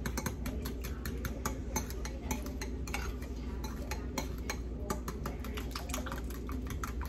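A utensil stirring a thin soy-sauce marinade in a ceramic bowl, clicking quickly and repeatedly against the bowl's side, several clicks a second.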